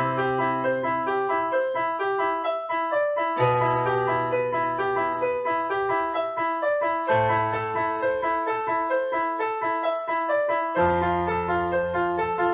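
Instrumental break on piano, no singing: notes played over sustained bass chords, with the chord changing about every three and a half seconds.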